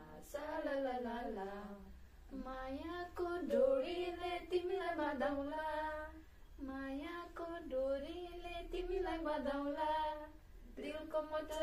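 A woman singing a melody unaccompanied, in four phrases of a few seconds each with short breaths between.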